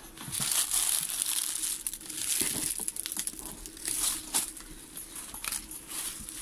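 Dry leaves and twigs crackling and rustling as someone pushes through dense, dry brush, with many sharp snaps among the rustle.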